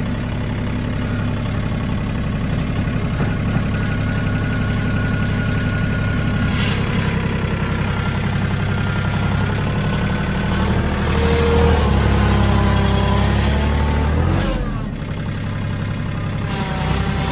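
TYM compact tractor's diesel engine running steadily, heard from the driver's seat. Its note changes for a few seconds in the second half.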